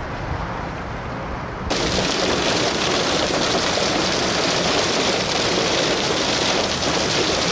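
Wind buffeting the microphone at first, then, from a cut under two seconds in, the steady hiss of heavy rain pouring down onto wet pavement.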